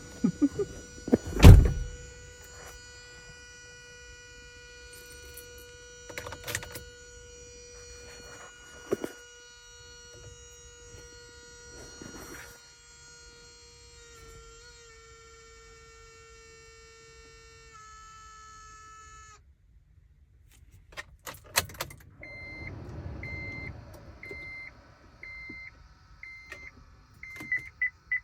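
Honda Odyssey minivan after unlocking: a loud thunk, then a steady electrical whine with several pitches that holds for a long stretch and cuts off suddenly; this is the strange noise heard on unlocking. Near the end come a few sharp clicks and a warning chime beeping about once a second.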